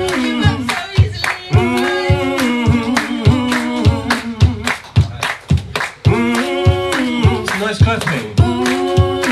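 Live acoustic band music: an upright double bass plucked in a steady beat of about two notes a second, with acoustic guitar and sung vocals over it.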